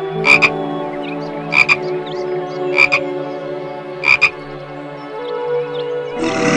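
Tree frog calling four times, about 1.3 seconds apart, each call a short double croak, over sustained soft tones that shift in pitch a couple of times. A rough, noisy sound starts near the end.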